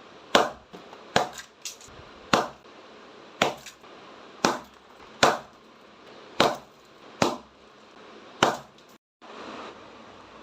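A series of about ten sharp, crisp impacts, roughly one a second, each fading quickly. About nine seconds in, the sound cuts out and is followed by a steady hiss.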